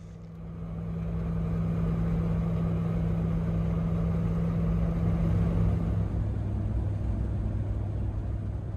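Engine and road noise heard inside a vehicle's cabin while driving at speed: a steady hum with a low droning tone. The drone drops to a lower pitch about six seconds in. The sound fades in over the first second or two and fades down near the end.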